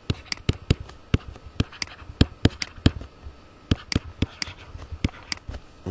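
Tablet stylus tapping and clicking against the screen during handwriting: irregular sharp clicks, about four a second.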